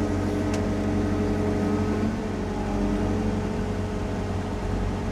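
Sany SY50U mini excavator's engine running steadily at a constant speed, with a brief sharp click about half a second in.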